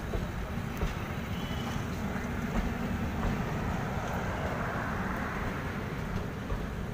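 Passenger train coaches rolling past on departure, wheels on rail, in a steady rumble. In the second half the rear luggage-brake-and-generator power car goes by, its generator running and adding a broad rushing noise.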